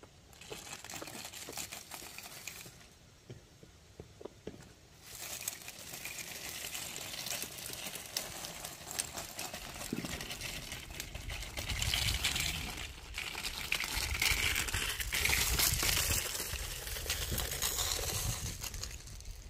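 Black well drop pipe, with the pump wire taped to it, scraping and rustling as it is fed by hand down into the well casing and dragged along the ground. The crackly scraping gets louder about five seconds in and is loudest in two stretches past the middle.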